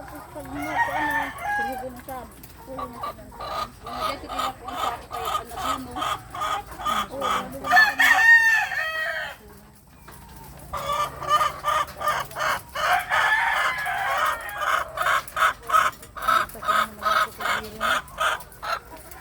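Chickens clucking in rapid repeated series, about three calls a second. About eight seconds in comes one louder, longer call that rises and falls in pitch. There is a brief lull, and then the clucking resumes.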